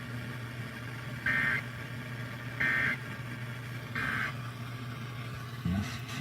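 Emergency Alert System end-of-message code from a weather-radio broadcast: three short, buzzy digital data bursts about 1.3 seconds apart, closing the warning, over a low steady hum.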